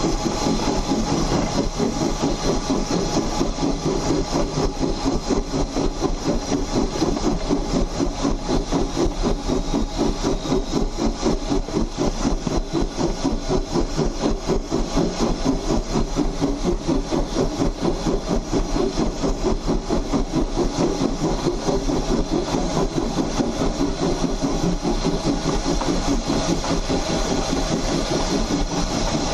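2-8-2 saddle tank steam locomotive running, heard up close at the driving wheels: a fast, even rhythm of exhaust chuffs over the clank of the running gear and wheels on the rails.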